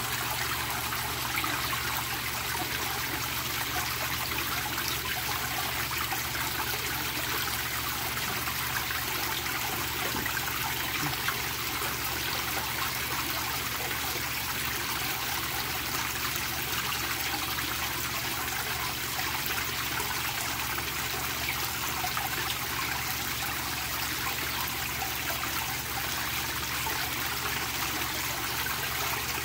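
Water from dome-shaped fountain nozzles splashing steadily onto the surface of a koi pond, a continuous trickling rush, with a low steady hum underneath.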